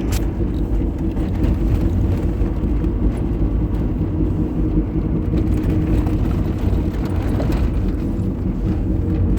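Car in motion with a steady low grinding noise from the wheel end, heard just after a wheel bearing and rotor were replaced; the cause is unknown to the owner.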